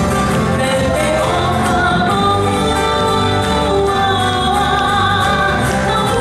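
Hawaiian song performed live: a voice singing a melody over strummed guitars and a steady, pulsing bass line.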